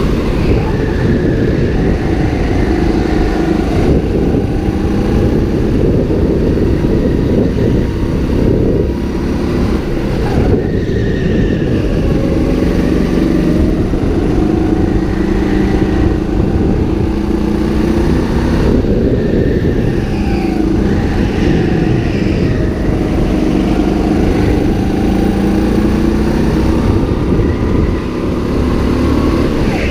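A rental go-kart's engine, heard from on board, revving up as it accelerates and dropping in pitch as it slows, over and over through the corners of the lap.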